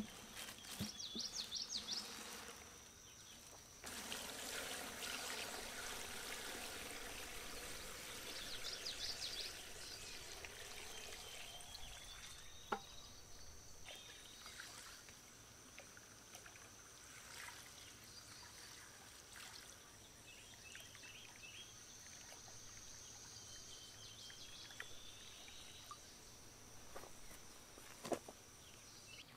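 Evapo-Rust rust remover poured from a plastic jug into a plastic bag over rusted sewing machine parts, filling it to soak them. A steady splashing pour starts a few seconds in, runs about eight seconds, then thins to a quieter trickle, with faint chirping calls in the background.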